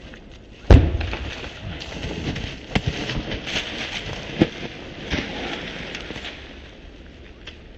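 A staged pyrotechnic explosion goes off with one loud bang about a second in. Several seconds of hissing crackle follow, with a few sharper pops, fading out as the smoke cloud drifts.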